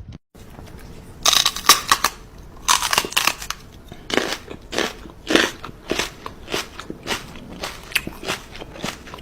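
Rhythmic crunching: dense, loud crunches start about a second in, then settle into single crunches about twice a second.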